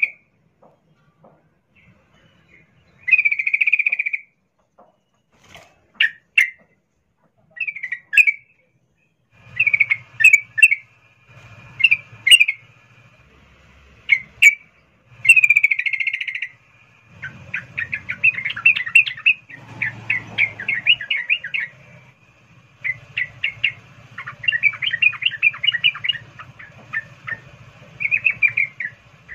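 Female yellow-vented bulbul (trucukan) calling: short separate calls a second or two apart, then from about 17 seconds in a fast rolling chatter. This is the 'ngerol' call of a female in breeding condition calling for a male.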